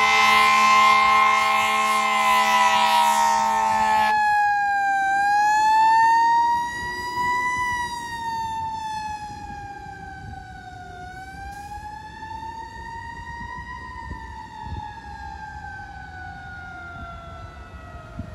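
Fire engine responding with its siren wailing, slowly rising and falling in pitch. For the first four seconds a steady air horn blares over it and then cuts off suddenly. The siren grows fainter after that.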